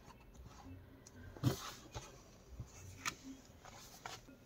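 Hardcover colouring book being closed and lifted off a cutting mat: faint rustles and a few light knocks, the loudest about one and a half seconds in.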